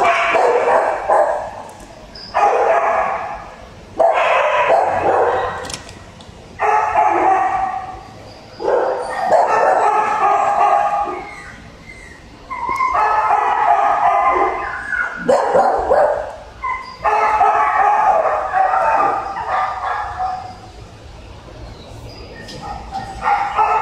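Shelter dogs barking in their kennels, in about eight loud bursts of one to three seconds with short pauses between.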